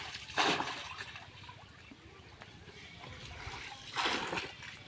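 Pond water splashing and sloshing around a man wading waist-deep, with two louder splashes: one about half a second in and one about four seconds in, as a small clay pot is dipped into the water.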